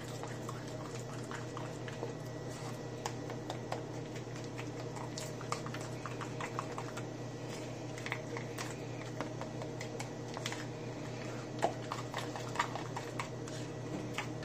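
Metal spoon stirring thick mayonnaise sauce in a small plastic cup: irregular light clicks and taps of the spoon against the cup, over a steady low hum.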